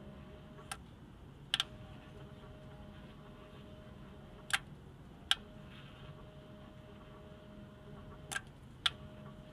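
Three pairs of sharp clicks as the rotate buttons on a Jasco polarimeter are pressed and released to turn the analyser in short steps toward the matching point. A faint steady high hum drops out between the two clicks of each pair.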